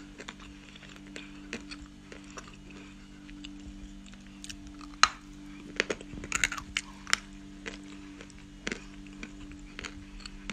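Biting and chewing dry lumps of kaolin clay (nzu, calabash chalk): scattered crisp crunches, with a dense run of them in the middle and the loudest bite about five seconds in. A faint steady hum sits underneath.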